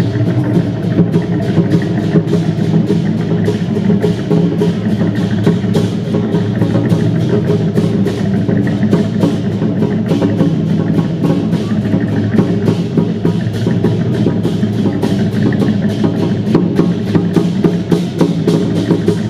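Dragon-dance percussion music: drums beating with a dense run of rapid clacking strikes over it, loud and continuous.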